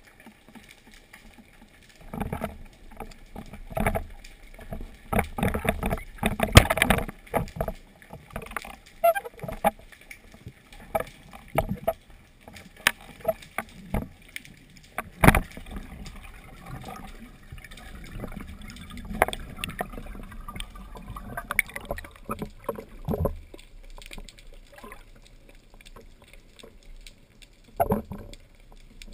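Underwater recording of a spearfisher's movements: irregular muffled knocks and clicks with swishing water, the diver's body and speargun gear moving through the water. The knocks come thickest in the first several seconds, with one sharp click in the middle.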